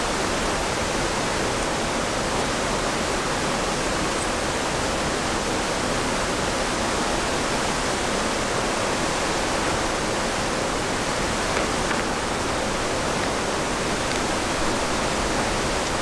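Steady, even rushing noise with no distinct events, of the kind that running water or wind in the trees makes.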